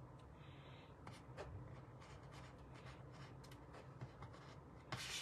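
Quiet paper handling as die-cut glimmer paper pieces are arranged: faint scattered rustles and small taps, with one louder, brief paper rustle near the end.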